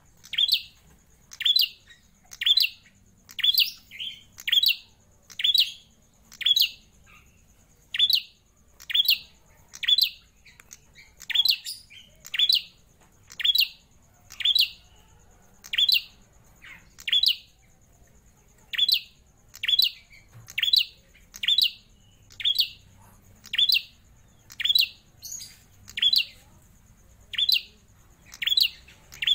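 A caged prenjak klawu singing loudly and without pause: a sharp, steeply falling call note repeated about once a second, sometimes in quick pairs.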